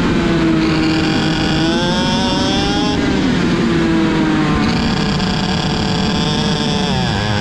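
IAME X30 125cc two-stroke kart engine under throttle: the revs climb, drop back about three seconds in, climb again, then fall away sharply near the end.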